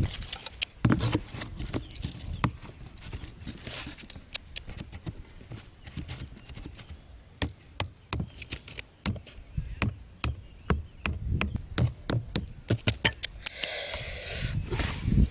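Irregular sharp clicks and knocks, with a few short high bird chirps about ten seconds in and a burst of rustling near the end.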